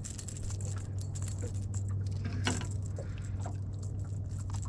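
Small metallic jingling and clicks, like a crankbait's treble hooks rattling while a small bass is handled and unhooked, over a steady low hum of the boat's motor.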